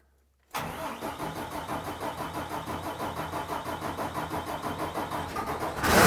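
24-valve 5.9 Cummins diesel cranking on the starter with an even, pulsing rhythm from about half a second in, then firing and catching near the end with a sudden loud surge into running: the swapped engine's first start.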